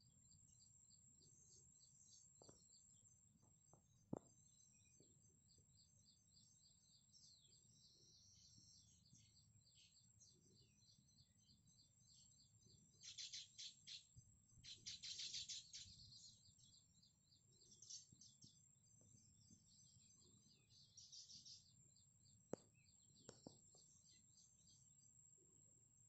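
Faint chirping and chattering of a baya weaver colony at its hanging nests. Several louder bursts of rapid chatter come about halfway through and again a little later.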